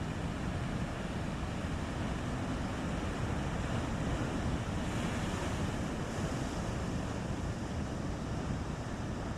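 Rough sea: a steady rush of waves and wind, with wind buffeting the microphone.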